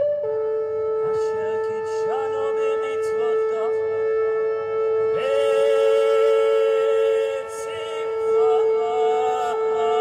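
Shofar blasts: long notes that each scoop up into pitch, entering about two, five and eight and a half seconds in, over a steady held tone that runs underneath.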